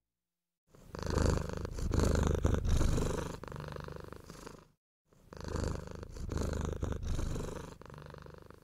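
A cat's purr, loud and pulsing, heard twice in nearly identical runs of about four seconds each with a short break between them.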